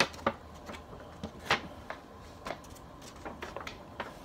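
A folded paper playmat being opened out by hand: paper rustling in short, irregular crinkles and crackles, about a dozen of them.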